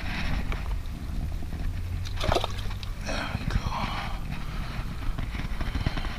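Wind buffeting a head-mounted action camera's microphone as a steady low rumble, with handling rustles and a sharp knock about two seconds in.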